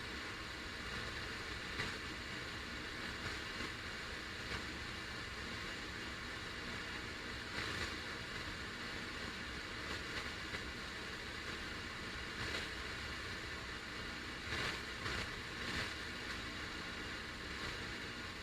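FM radio static: a steady hiss with brief crackles every second or two.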